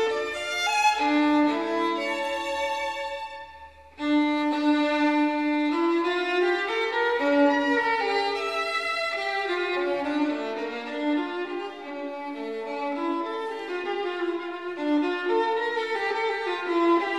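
Background instrumental music with a melody in sustained pitched notes. It fades down about three seconds in and starts again abruptly about a second later.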